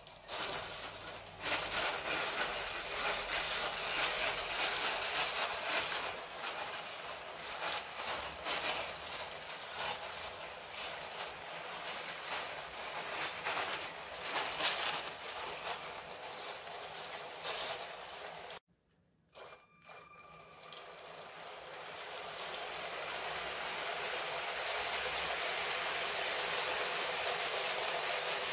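Lego City 60197 passenger train, ten wagons pulled by a single motor, running over plastic track: a rattling clatter of plastic wheels over the rails, full of fine clicks. About two-thirds through, the sound cuts out for about a second, then comes back as a smoother, even noise that grows steadily louder.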